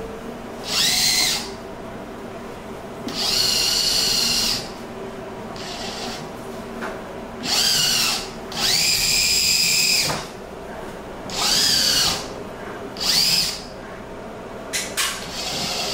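Robocam S sewer-inspection crawler's electric drive motors whining in about eight short bursts as it is driven back and forth and turned by joystick. The pitch rises as each run starts and falls as it stops.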